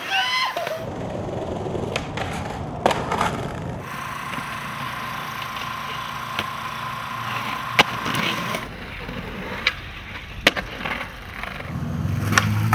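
Skateboard wheels rolling on concrete, broken by several sharp clacks of the board popping and landing. A steady whine runs for a few seconds mid-way, and a low hum builds near the end.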